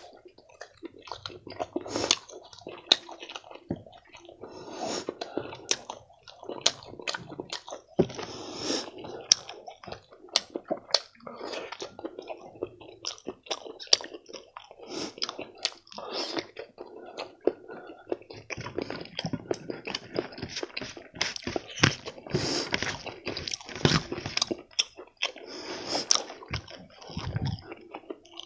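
A person chewing and biting fried food, with irregular crunches and sharp clicks throughout.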